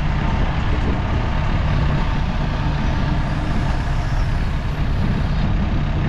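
Heavy diesel vehicle engine running steadily, with a continuous low drone and no change in speed.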